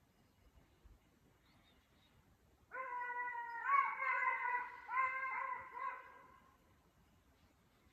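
Hunting dogs baying in the woods, typical of hounds giving voice on a hare's trail: a run of long, howling bays beginning about three seconds in and lasting about four seconds.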